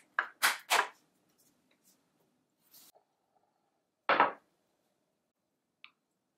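Tableware handling sounds: two quick brushing strokes near the start, then a white ceramic soup bowl set against the table about four seconds in, which is the loudest sound. Near the end comes a faint tiny click as a wooden spoon touches the bowl.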